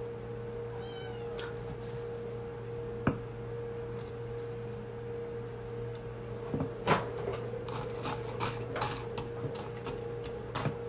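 Ice cubes clinking against a glass of iced coffee as a metal straw stirs them: a run of sharp clicks and clinks through the second half. A brief high call is heard about a second in, and a steady low hum runs underneath throughout.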